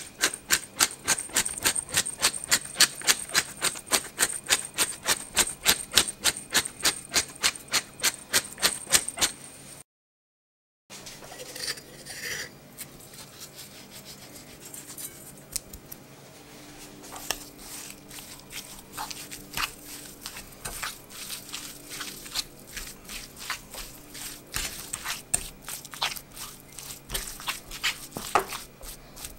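Hand-turned pepper mill grinding black pepper into a ceramic bowl: a fast, even run of clicks, about four a second, that stops abruptly after about ten seconds. After a short silence come softer, irregular scrapes and clicks as a spoon stirs a spinach and cheese filling in the bowl.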